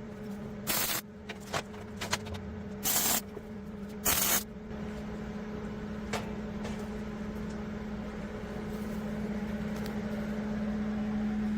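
Three short bursts of welding hiss and crackle, quick tack welds joining rebar, in the first half. After that comes a steady low hum from a running engine or motor that slowly grows louder.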